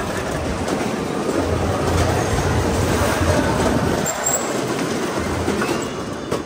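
Go-kart being driven over a concrete floor, heard from on board: a steady rumble of tyres and drivetrain.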